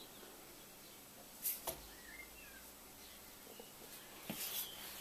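Quiet workshop room tone with a couple of brief light knocks about a second and a half in and another soft short noise near the end. A few faint high chirps in the background.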